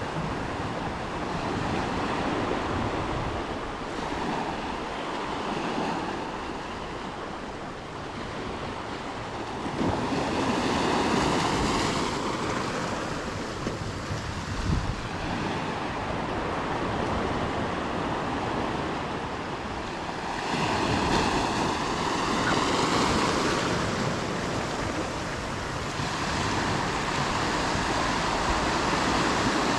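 Small ocean waves washing in over a seaweed-covered rock shelf, with a steady surf wash that swells twice as water rushes across. There is a single short knock midway.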